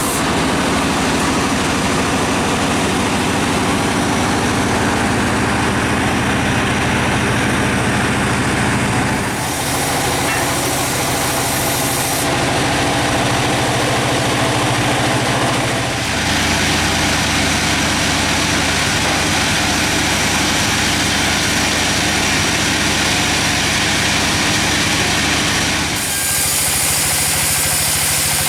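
Sawmill machinery's engine running steadily, its sound shifting abruptly about a third of the way in, around the middle and near the end.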